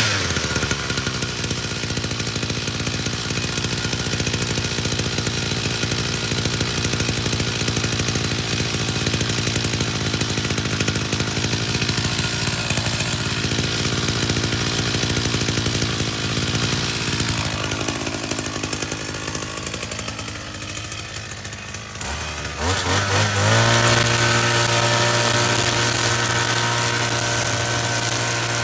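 Petrol string trimmer engine running just after a pull start, at an uneven idle that sags in pitch a couple of times. About 22 seconds in it revs up to a steady, louder high speed as it cuts grass.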